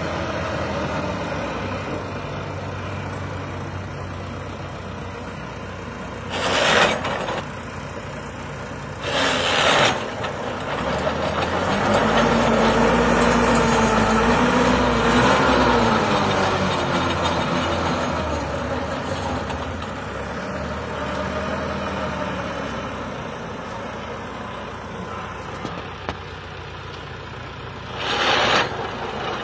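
A farm tractor's diesel engine runs a rear-mounted rotary pit digger cutting round planting pits in soil. About twelve seconds in, the engine note climbs and works harder under the digging load for a few seconds, then settles. There are three short bursts of hiss.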